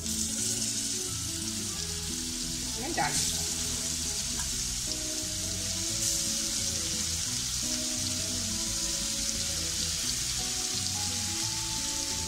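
Masala-marinated rohu fish steaks sizzling as they shallow-fry in a little oil on a hot tawa. The sizzle starts suddenly as the first piece goes in, flares briefly about three seconds in, then holds steady.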